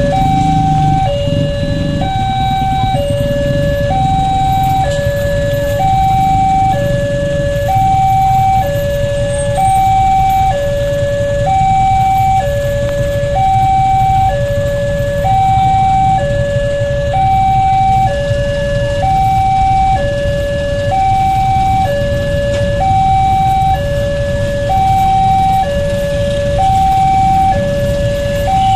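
Railway level-crossing's electronic (synthetic) warning alarm sounding with the barriers down, two tones alternating high and low, about a second each, repeating steadily. Underneath is a low rumble of waiting road traffic.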